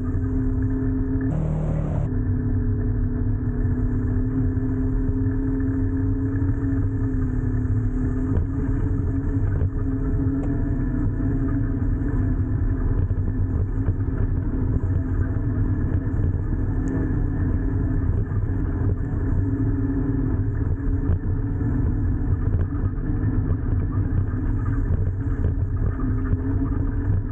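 Motor vehicle driving: a steady engine hum over low road rumble, with a short louder rush about a second and a half in.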